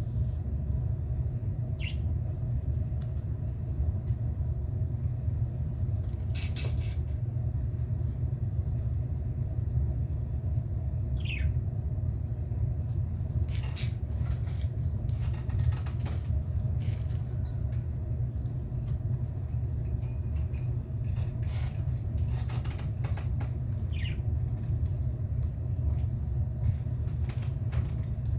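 Budgerigars giving a few short, high chirps, with scattered rustling and fluttering, over a steady low rumble.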